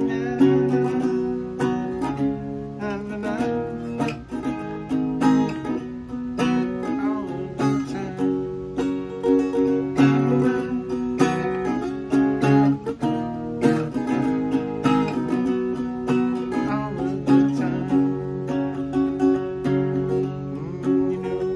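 Gretsch parlor acoustic guitar, capoed at the fourth fret, strummed in a steady rhythm through a chord progression built mostly on D and G shapes.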